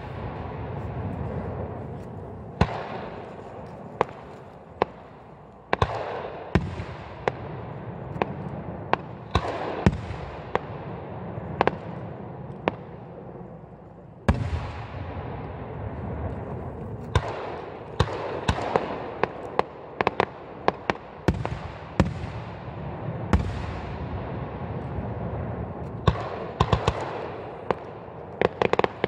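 Aerial firework shells bursting one after another, each sharp bang trailed by a long rolling echo. A quick run of crackling pops comes near the end.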